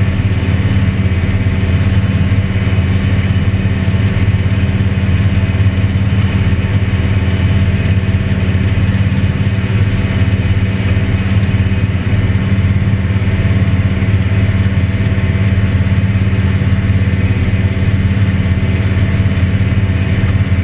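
Steady drone of a tractor engine under load pulling a John Deere pull-type combine, with the combine's pickup header and threshing machinery running as barley swath feeds in. The hum holds an even pitch throughout.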